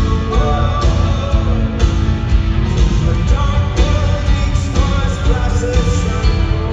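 Rock band playing live through a large sound system, with singing over the band.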